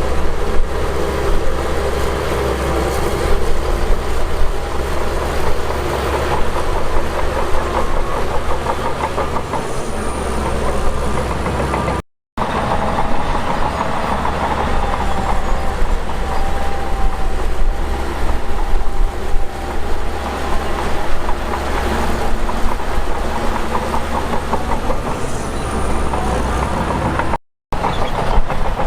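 Heavy diesel earthmoving machinery running hard, with a steady engine drone and a rapid metallic clatter. The sound cuts out completely twice for a moment.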